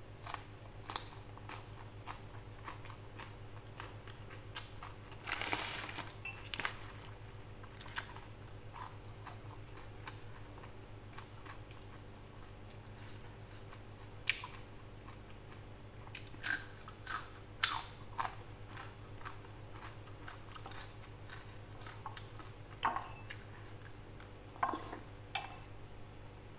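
Close-up eating sounds: chewing with scattered crisp crunches and mouth clicks as fried fish is eaten by hand, over a steady background hum.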